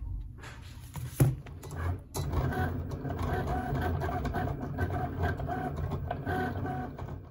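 Cricut cutting machine running from about two seconds in, its motors whirring in short repeated pulses as it works on vinyl laid on the cutting mat. Before it starts there are a few handling knocks and one sharp click.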